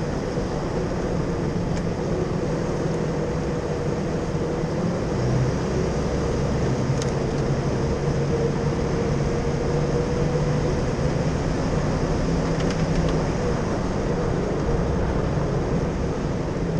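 Jeep driving along a sandy wash: a steady engine hum under a constant rush of tyre and wind noise.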